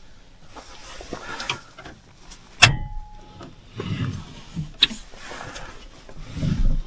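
Rustling and low knocks of things being handled, with two sharp clicks, the louder one about two and a half seconds in.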